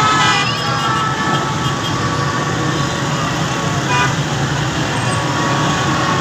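Busy road traffic with vehicle engines running and horns sounding: several horn tones at the start and a short one about four seconds in.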